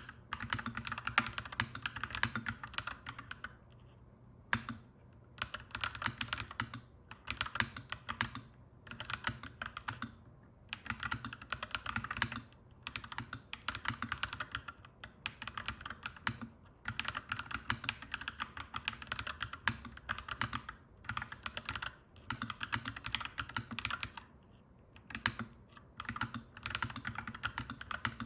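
Clacky mechanical keyboard being typed on in bursts of quick keystrokes, with short pauses every few seconds.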